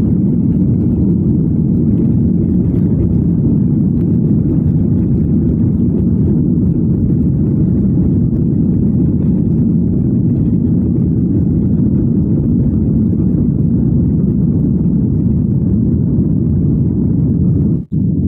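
Jet airliner's engines at takeoff power heard from inside the cabin: a loud, steady low rumble through the takeoff roll and climb-out, broken by a brief dropout near the end.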